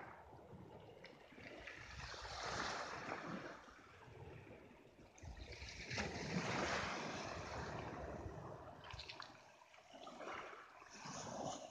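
Small sea waves washing onto a pebble beach: the hiss of surf swells and ebbs three times, with a low rumble of wind on the microphone.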